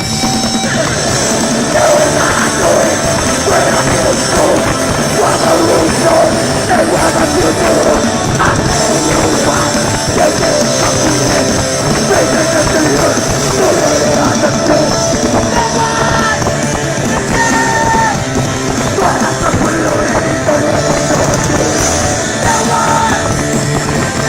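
Loud live punk rock music from a band playing in a club, with singing.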